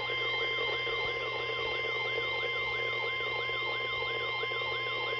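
NOAA Weather Radio 1050 Hz warning alarm tone held steady, with a fast warbling siren-like alert tone over it, nearly three sweeps a second: the attention signal that comes before a tornado warning broadcast.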